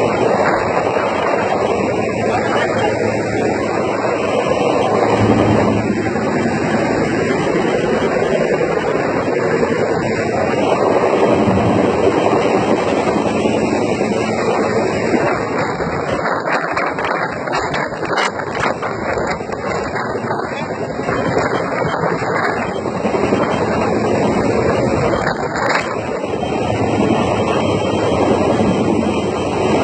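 Helicopter running steadily overhead, its rotor and engine noise a continuous loud wash.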